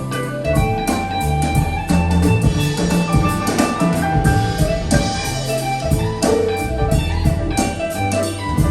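Recorded music with drums, guitar and heavy bass notes, played through KEF LS50 Meta bookshelf speakers and two subwoofers.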